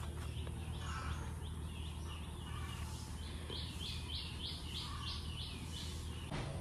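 A bird calling a run of about seven short, evenly repeated chirps, roughly three a second, with fainter calls just before, over a steady low outdoor hum.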